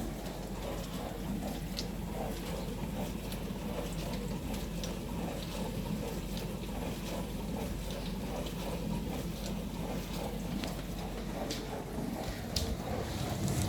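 Dishwasher running a wash cycle: a steady pump hum with water spraying and splashing inside, a few faint ticks over it.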